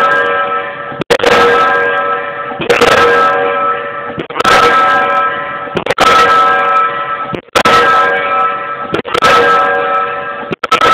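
Diesel pile hammer driving a pile: a loud blow about every second and a half, about seven in all, each followed by a metallic ringing that dies away before the next strike.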